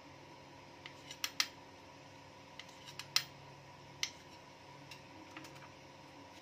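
A kitchen knife cutting soft starch dough into pieces, its blade tapping on a granite countertop: about a dozen irregular sharp clicks, loudest a little past one second and about three seconds in.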